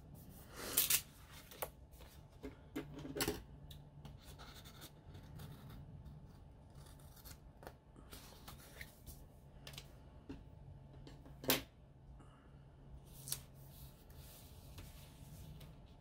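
Paper handling: planner pages and sticker paper rustling and sliding on a wooden desk, with a few short, sharp crinkles between quieter stretches.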